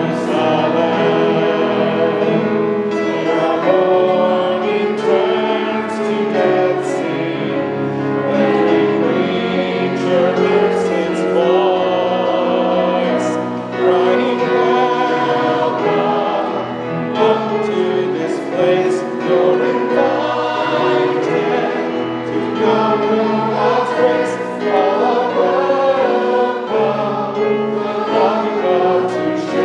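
A group of voices singing a hymn together, moving through held notes.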